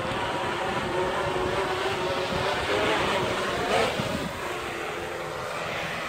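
Parrot Bluegrass quadcopter's electric motors and propellers buzzing overhead as it comes in to land, a steady hum made of several tones.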